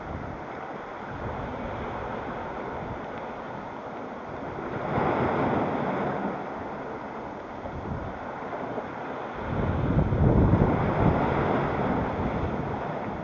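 Sea surf washing on the shore with wind buffeting the microphone. The noise swells about five seconds in and again about ten seconds in; the second swell carries a heavy low rumble of wind on the mic.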